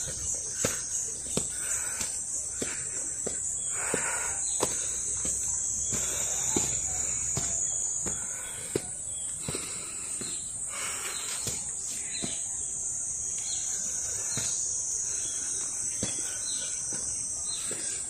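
Insects chirring steadily in a high, even band, with footsteps on a stone path at a walking pace.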